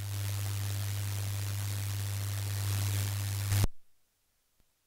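Steady electrical hiss with a strong low hum under it, typical of an open audio line or mixer channel with no voice on it. It cuts off suddenly about three and a half seconds in, with a short pop.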